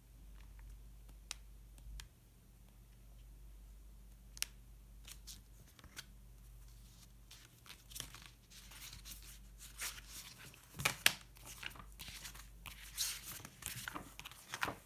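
Paper and sticker sheets being handled: a few light taps at first, then from about halfway a run of crisp rustling, crinkling and tearing, sharpest around three-quarters of the way through.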